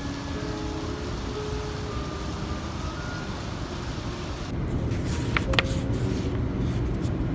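Steady road traffic noise from nearby city streets, a low rumble. About two-thirds of the way through it gets louder, with a few sharp clicks.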